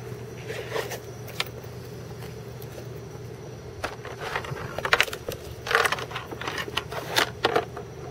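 Gear being handled by hand: a scattered series of short clicks, knocks and rattles, busiest in the second half, over a steady low hum.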